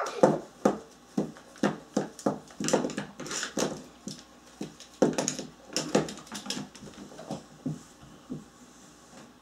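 A quick, irregular run of short knocks and taps, two or three a second, as plastic dolls are shaken and bumped against a wooden floor; it thins out and fades over the last couple of seconds.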